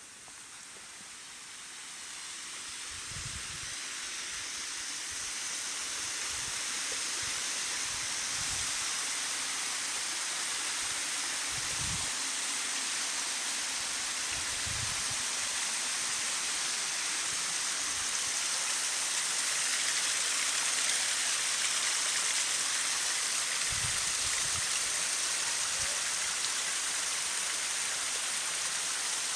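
Waterfall rushing, growing louder over the first several seconds and then holding steady, with a few soft low thumps now and then.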